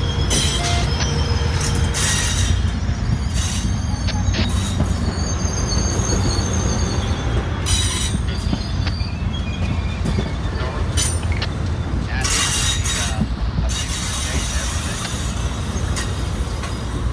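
Amtrak Superliner bilevel passenger cars rolling past close by: a steady rumble of steel wheels on the rails, with high-pitched wheel squeals now and then.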